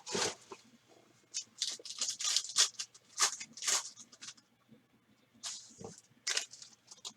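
Plastic trading-card pack wrapper being torn open and crinkled, in a run of short rustling bursts, with a few more crinkles near the end.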